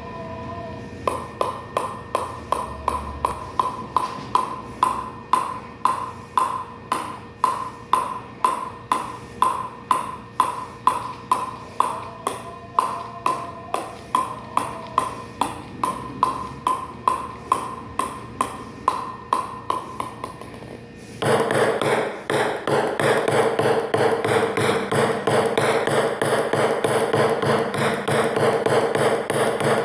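Table tennis ball bouncing steadily, about two pings a second, each with a short ringing tone. Just after two-thirds of the way through it suddenly changes to a louder, much faster run of rapid taps.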